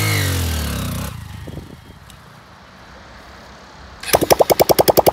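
Honda XR150L single-cylinder engine blipped once with the throttle, its pitch rising and falling back within about a second. About four seconds in, a rapid, even run of sharp pulses, about fourteen a second, lasts under two seconds.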